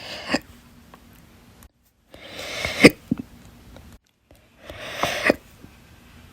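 A person hiccuping slowly, three times about two and a half seconds apart. Each hiccup is a short breath cut off by a sharp hic, the second the loudest.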